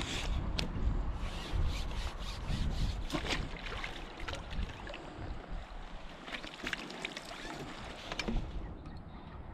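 A fishing landing net is dipped and swished in lake water to release a carp, giving irregular splashes and sloshes that come in two spells, with wind rumbling on the microphone.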